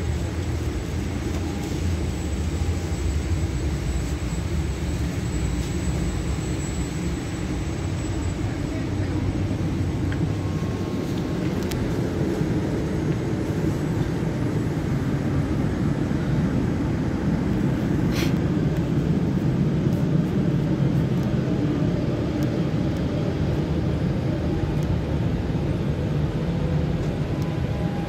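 Steady low rumble and hum of a Boeing 787-8 Dreamliner's cabin, heard from inside the cabin, with one faint click past the middle.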